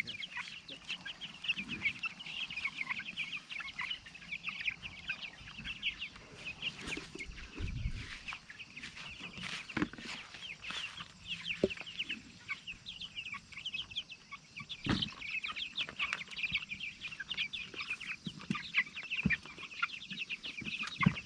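A flock of young broiler meat chickens chirping and peeping all together, many short high calls overlapping without pause, with a few scattered knocks.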